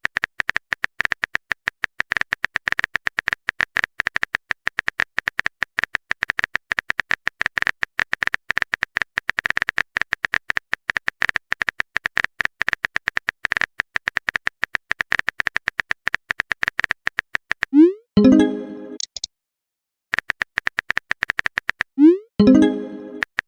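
Rapid clicking of a phone-keyboard typing sound effect as text is typed out. It breaks twice near the end for a short pitched tone that opens with a quick upward chirp.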